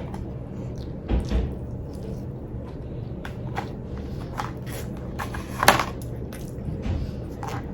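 Close-up eating sounds: chewing with scattered short clicks and crackles of food and packaging handling, a louder crackle about five and a half seconds in, over a steady low hum.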